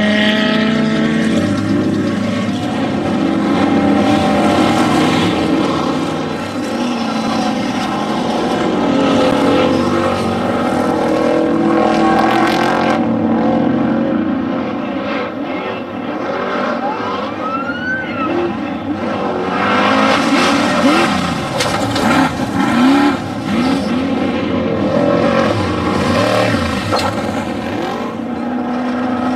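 Off-road desert race vehicles' engines running hard, their pitch rising and falling again and again as they rev, shift and back off.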